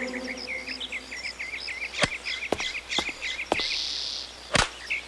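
Cartoon ambience of birds chirping rapidly through the first half, with five sharp taps spread through the middle that fit a shuttlecock being kicked back and forth.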